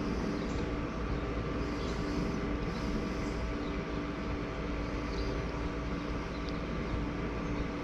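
Steady mechanical hum with a few constant tones over a low rumble, like running machinery.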